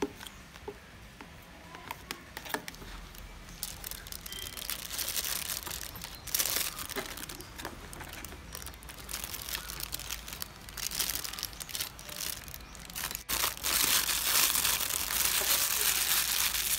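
Thin plastic piping bag crinkling and rustling as it is handled, filled with whipped cream and squeezed, loudest in the last few seconds. Earlier there is quieter scraping of a spatula through cream in a plastic tub, with a few small clicks.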